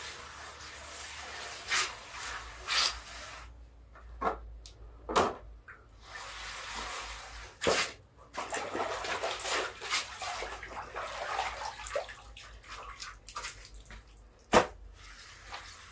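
A wet cloth rubbed by hand across a wet cement floor, with water splashing and dripping as the cloth is lifted from the basin, and a few sharp knocks, the loudest near the end.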